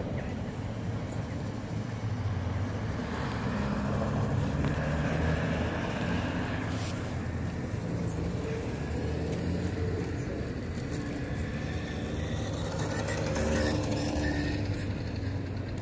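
City street traffic at an intersection: cars and mopeds passing, with a vehicle swelling past near the end and light scattered clicks over a steady hum.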